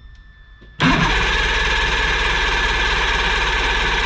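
Johnson 90 hp two-stroke outboard being cranked by its electric starter, kicking in suddenly about a second in and turning the engine over steadily and evenly. The engine does not fire even though it has spark.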